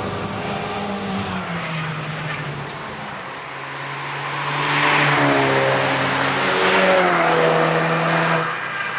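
Cars driving hard through a track corner: at first an engine note that drops in pitch in steps, then a VW Golf GTI and a BMW 1 Series passing close, engines under throttle with loud tyre and wind noise, loudest from about five to eight seconds in and dropping away sharply near the end.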